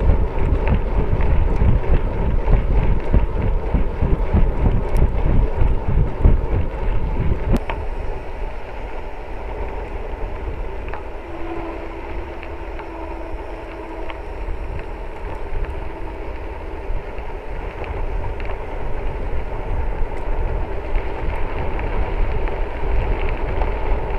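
Wind buffeting the microphone over tyres rolling and rattling on a dirt and gravel road, with rough bumping for the first eight seconds or so, then a smoother, slightly quieter ride.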